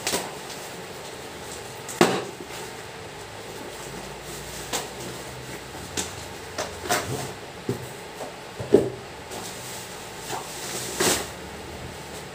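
A cardboard shipping box and black bubble wrap being handled and pulled apart: scattered knocks, crinkles and rustles. The sharpest knocks come about two seconds in and again near nine seconds.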